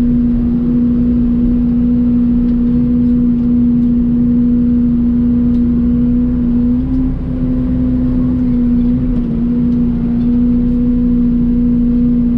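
Mini excavator's diesel engine running steadily as the machine works, a loud even hum whose pitch shifts slightly a couple of times as the hydraulics take load.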